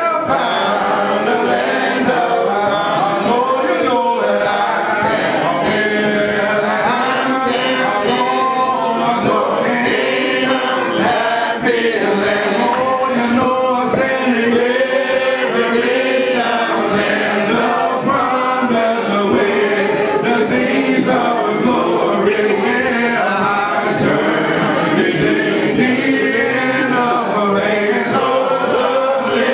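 A church congregation singing together a cappella: many men's and women's voices, with no instruments.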